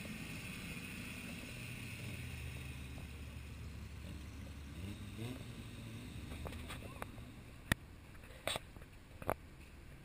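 Off-road 4x4's engine running with a low, steady drone that fades out after about six seconds, then three sharp knocks about a second apart near the end.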